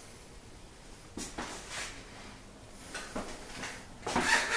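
A few scattered soft thuds and rustles, as of footsteps on hard flooring and a handheld camera being moved, in a small room.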